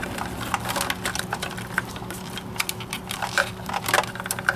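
Irregular small clicks and rattles of plastic wiring-harness connectors being handled and plugged together, over a faint steady hum.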